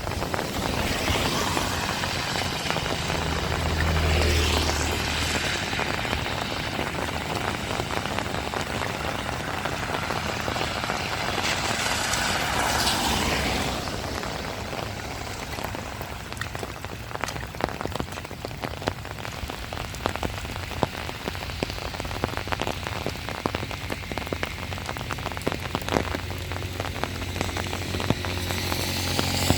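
Heavy rain falling steadily, swelling louder briefly twice, with many separate drops ticking on a close surface in the second half.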